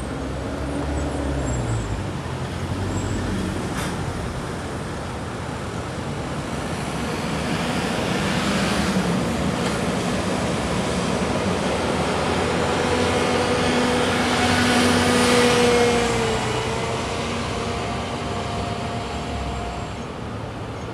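Road traffic passing close by, a steady rush of tyres and engines that swells in the middle. The loudest vehicle goes by about three-quarters of the way through, its engine whine dropping in pitch as it passes.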